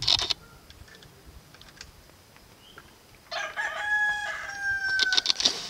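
A rooster crowing: one long crow about three seconds in, held for about two seconds and falling slightly at the end. A few brief clicks come right at the start.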